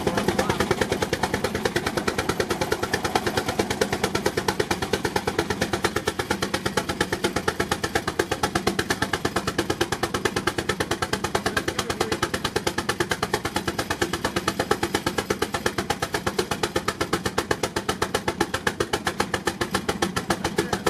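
Baker Uniflow steam traction engine working hard under load on a Prony brake dynamometer, its exhaust beating rapidly and evenly, several beats a second, with no let-up.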